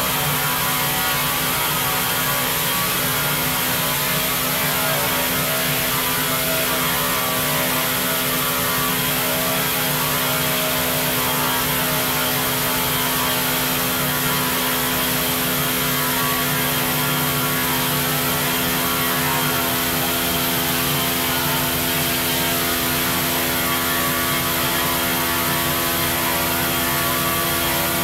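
CNC stone work centre milling a solid stone block under water spray: the spindle and cutter run at a steady pitch, with a constant hiss of cutting and coolant water.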